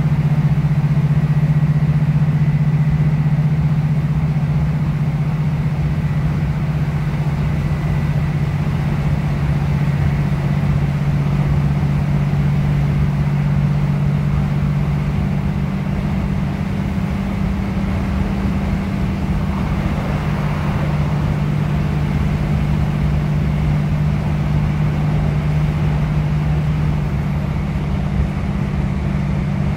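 Steady drone of a British Rail Class 156 Super Sprinter diesel multiple unit heard from inside the passenger saloon while travelling at speed: its underfloor six-cylinder Cummins diesel engine running under power, with wheel and rail noise beneath it.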